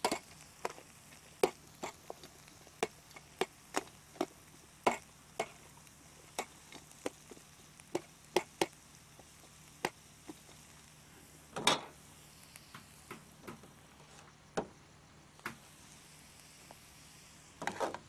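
Metal ladle stirring and scraping chopped vegetables in a metal pan, giving irregular sharp clicks and knocks against the pan, about one or two a second, over a faint steady hiss.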